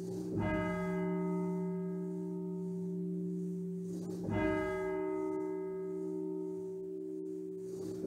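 A single church bell tolled slowly as a memorial toll, struck twice, about four seconds apart. Each stroke rings on and fades slowly into a lingering hum.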